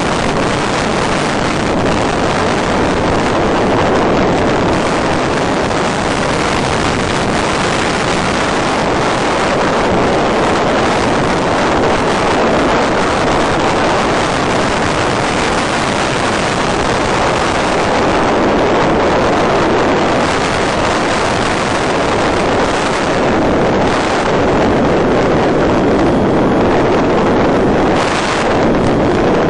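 Steady rushing wind noise on the onboard microphone of an FPV model glider. Its electric motor is off and the glider is soaring, so no motor whine is heard.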